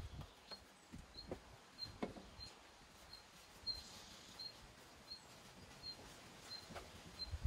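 A paintbrush scuffing and tapping as it spreads finish over charred wood, in soft irregular strokes. Behind it, a short high chirp at one pitch repeats steadily, about three times every two seconds.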